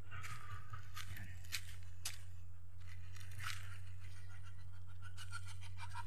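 Footsteps on dry leaf litter and dirt: a few faint, scattered crunches over a steady low hum. Near the end a rapid, high, pulsing chirp starts up.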